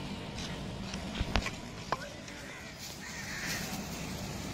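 Wooden spoon knocking sharply against a steel pot three times while spiced chopped fruit is mixed, with a crow cawing about three seconds in.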